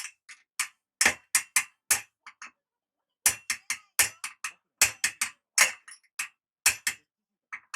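Hammer striking a motorcycle exhaust-pipe flange to straighten its deformation: about two dozen short, sharp metal knocks at an uneven pace, with a pause of about a second before the middle.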